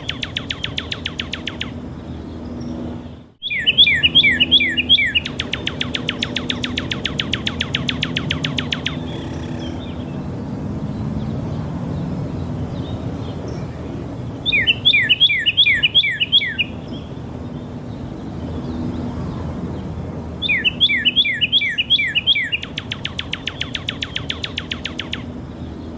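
Northern cardinal singing: phrases of sharp, down-slurred whistles, three of them running into a long, fast trill of short notes, repeated four times with pauses in between.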